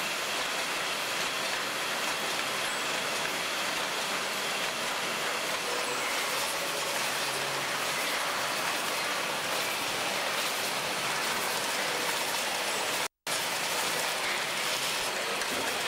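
Cheese-packaging line machinery and conveyor running, a steady, dense mechanical noise without a clear rhythm. It breaks off for an instant about thirteen seconds in.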